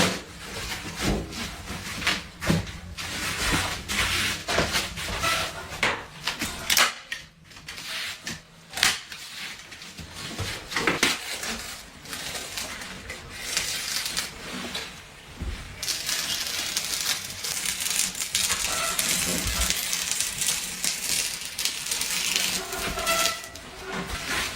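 Irregular clicks and knocks, like small objects being handled. About two-thirds of the way in, a steady hiss joins them.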